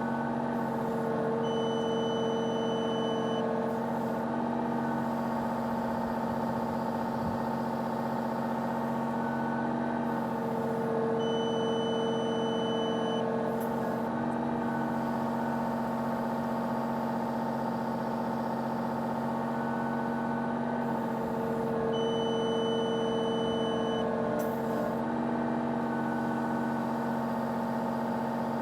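Excavator diesel engine running steadily at about 1900 RPM. Three times, about ten seconds apart, the boom lifts: a hydraulic whine rises under load for about two seconds while the onboard scale gives a high steady beep, which stops when the lift reading is taken.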